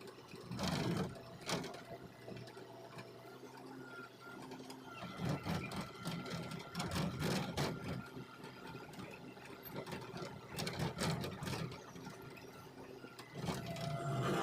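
Hitachi Zaxis hydraulic excavator at work: the diesel engine runs steadily under a thin high whine, broken by several loud bursts of clattering and scraping as the bucket digs into the roadside grass and soil.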